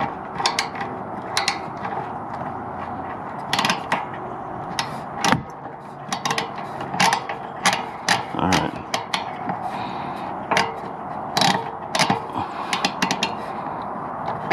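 Hand ratchet clicking in short, irregular strokes, with scattered metallic clicks and knocks from the socket and tool being worked on a fastener in a cramped space.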